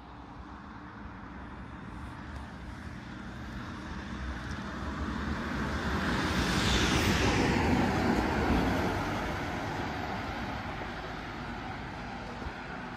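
A road vehicle driving past on the street: its tyre and engine noise swells to a peak about seven or eight seconds in, dropping in pitch as it goes by, then fades away.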